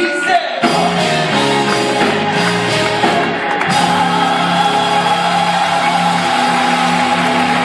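Church gospel choir singing with instrumental accompaniment. The music swells about half a second in, and from about four seconds in the choir and band hold one long chord.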